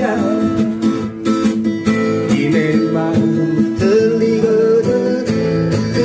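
A man singing to his own strummed acoustic guitar, holding long notes in the second half.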